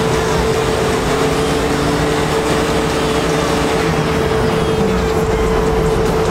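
Ford Focus ST 2.0 TDCI diesel running on a rolling-road dyno: a loud, steady mechanical running noise with a constant hum.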